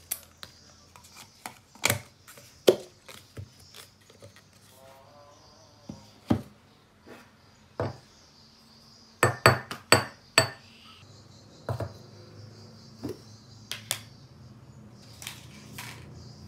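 Wooden spoon clinking, scraping and tapping against a small ceramic bowl and a plastic yogurt tub as Greek yogurt is spooned out: a scattered series of sharp knocks, with a quick run of about four loud ones about nine to ten and a half seconds in.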